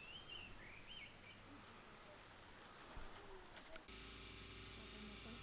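Steady, high-pitched chorus of insects, with a few short warbling bird calls in the first second or so. It cuts off suddenly about four seconds in, leaving only a faint, steady low hum.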